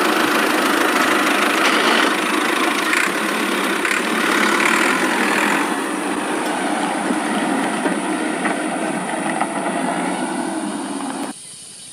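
Battery-powered toy tractor running, a steady whirr of its small motor and plastic gears that cuts off suddenly near the end.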